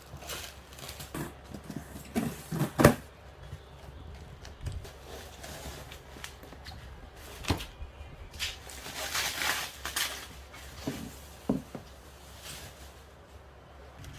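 Handling of packaging during an unboxing: scattered taps and knocks, with a longer rustle about nine to ten seconds in.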